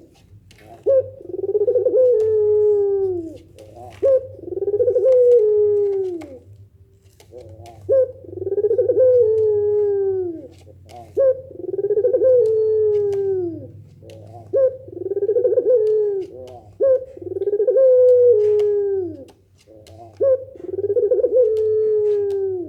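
Puter pelung Barbary doves cooing: a run of about seven long, drawn-out coos, one every three seconds or so, each opening with a short clipped note and then sliding down in pitch. The doves are calling back and forth in response to one another.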